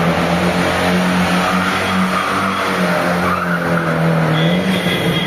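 Tofaş Kartal station wagon doing a donut: its engine is held at steady high revs while the rear tyres spin and skid on concrete, sending up smoke. A thin high tyre squeal joins near the end.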